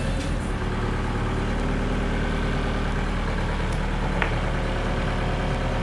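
Forklift engine idling steadily while it holds a suspended boat engine on a chain, with a single short metallic click about four seconds in.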